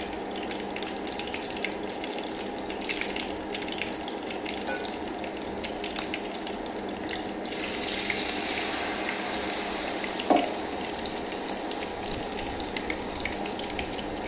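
Hot oil sizzling and crackling around shrimp-and-batter fritters frying in a pan. Around the middle the hiss grows louder and brighter as fresh batter is ladled into the oil, and about ten seconds in there is a short knock.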